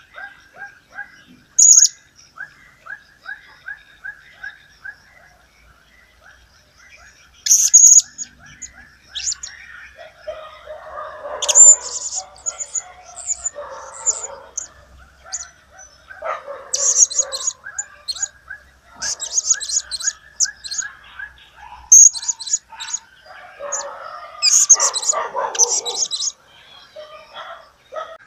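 Blue-crowned hanging parrot (serindit) calling in sharp, shrill, very high chirps, given in short clusters several seconds apart. Softer, lower ticking notes repeat quickly in the first few seconds, and rougher, lower chatter joins in the middle and again near the end.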